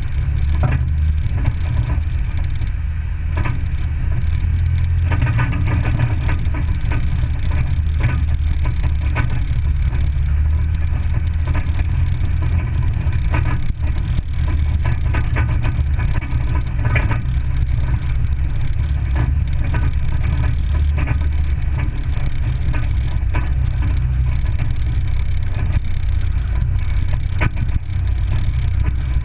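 Vehicle driving on a gravel road, heard from inside the cab: a steady low rumble of engine and tyres, with frequent small ticks and rattles.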